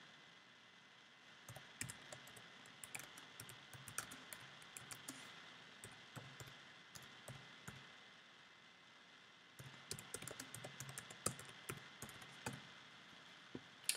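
Faint typing on a computer keyboard: two spells of rapid key clicks with a pause of a few seconds between them.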